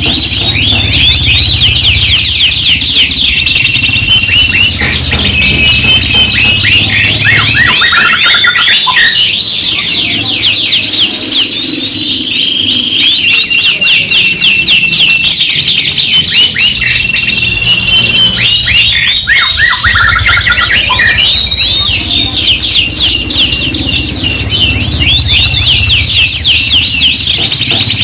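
Several domestic canaries singing at once: continuous, high-pitched rolling trills and rapid chirped phrases that overlap without a break.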